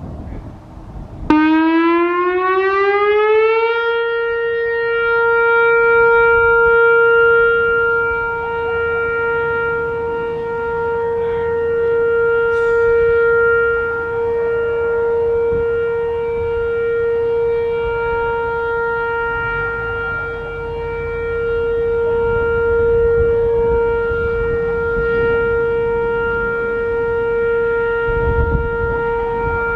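Whelen Vortex R4 electronic outdoor warning siren starting up about a second in, its tone rising for a couple of seconds and then holding one steady pitch: the steady full-alert signal sounded as a test. Its loudness swells and eases slowly while the pitch stays put.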